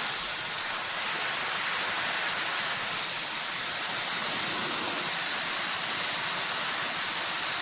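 SUPGALIY mini ionic hair dryer running on its warm setting, a steady rush of blown air.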